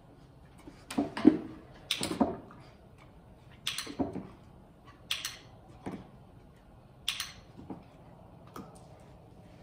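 A dog's paws knocking and shuffling on a plywood training box, with irregular short taps and scuffs about ten times, some close together in pairs.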